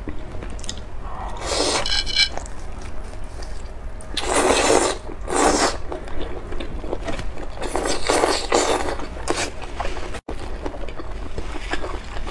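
Close-up eating sounds of someone biting and chewing sauce-coated octopus legs: several wet, noisy bursts, each up to about a second long, with quieter chewing between.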